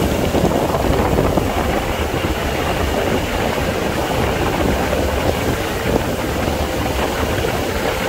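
Motor cruiser underway: its engine drones steadily, mixed with wind noise on the microphone.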